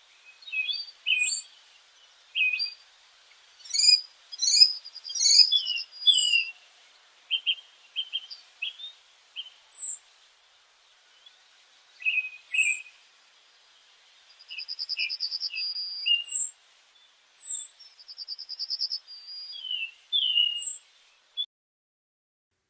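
Birdsong: a series of short chirps, high down-slurred whistles and quick trills with pauses between them, stopping abruptly about a second before the end.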